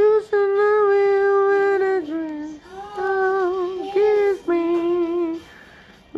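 A man singing unaccompanied in a high, light voice: a slow melody of long held notes in a few phrases, dropping away shortly before the end.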